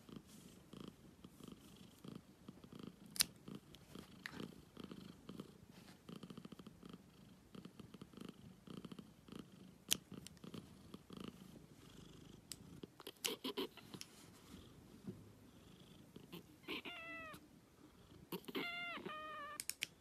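A cat purring steadily while its claws are trimmed, with a few sharp clicks from the nail clippers. Near the end come several short, high mews.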